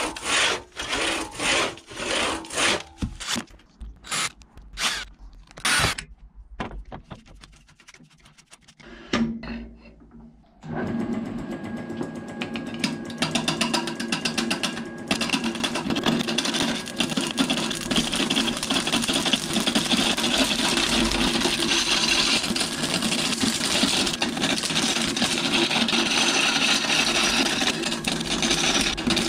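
Large hand crosscut saw cutting through a cherry log in repeated strokes, about two a second. After a quieter spell, a Record Power wood lathe spins a cherry blank while a turning gouge cuts it, giving a steady, continuous cutting noise through the rest.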